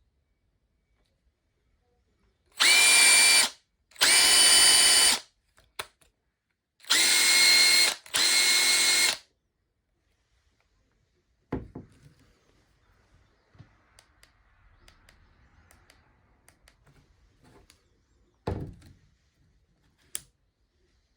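Repaired Makita TP141D cordless four-mode impact driver run free in four short trigger pulls of about a second each, in two pairs, its motor whining at a steady pitch with no impacting. A few knocks follow near the end.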